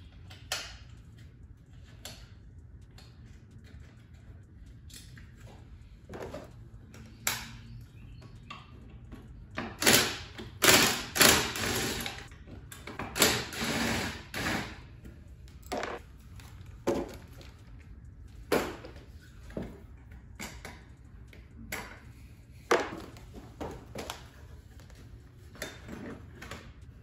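Plastic body panels of a Razor MX650 electric dirt bike being unfastened and pulled off the frame: scattered clicks and knocks, with a run of louder scraping and rustling near the middle, over a steady low hum.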